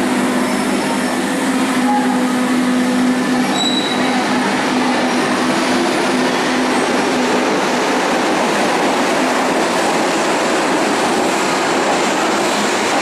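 Berlin U-Bahn subway train pulling out of an underground station and picking up speed past the platform. A steady hum in the first half gives way to the rushing rumble of wheels on rails.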